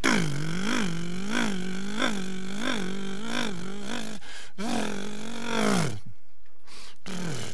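Sound effect of an old car's engine, loud and rattling, revving up and down in even waves about every two-thirds of a second as the car drives off, then one last rev that stops about six seconds in.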